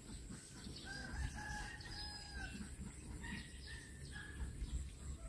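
A rooster crowing faintly: one long held crow lasting about a second and a half, followed by a few shorter calls, with small birds chirping.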